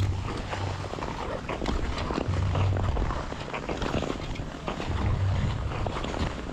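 Ice skate blades scraping and clicking on outdoor rink ice, stride after stride, with a low rumble that comes and goes three times.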